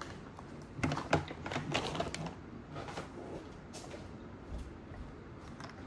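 Scattered light clicks, taps and rustles of food and snack packaging being handled on a table, busiest in the first couple of seconds.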